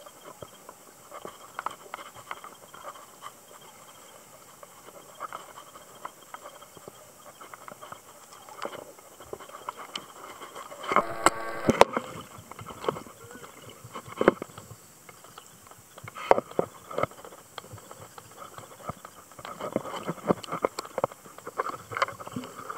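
Muffled underwater sound picked up by a snorkeler's camera: irregular clicks, knocks and crackles from water moving around the camera and from handling it. The clicks grow busier and louder about halfway through, with a brief hum about eleven seconds in.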